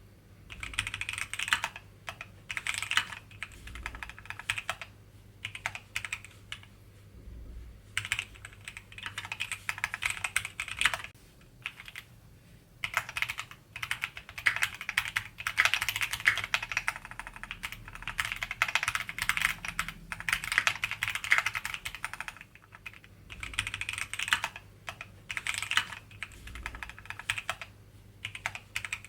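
Typing on a Keychron Q60 mechanical keyboard: runs of rapid, clacky keystrokes with brief pauses between the runs.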